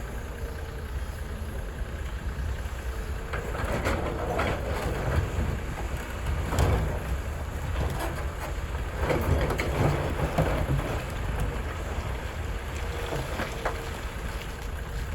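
Heavy diesel construction machinery running, most likely the Cat 330F excavator working: a steady low rumble that swells every few seconds as the engine loads up.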